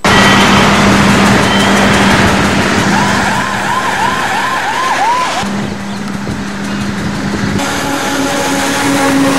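Traffic on a wet highway: steady tyre and engine noise as vehicles, including a lorry, pass. A quick repeating warble like a siren or musical horn sounds for about two seconds in the middle, and a steady pitched tone comes in near the end.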